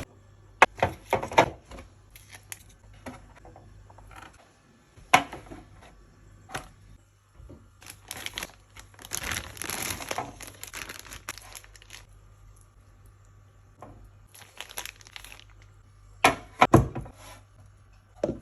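Plastic bags crinkling and rustling during food packing, densest for a few seconds in the middle, with scattered sharp clicks and knocks and a cluster of louder knocks near the end.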